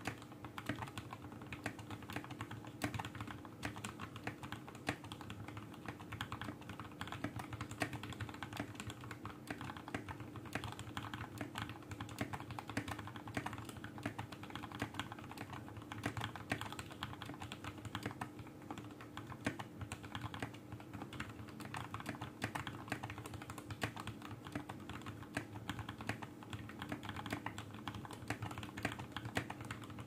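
Continuous fast typing on a Vortexseries VX64 Lite mechanical keyboard with lubed Gateron Black linear switches, GSA-profile keycaps and a foam-lined plastic case: a dense, unbroken stream of keystroke clacks. A faint steady hum sits underneath.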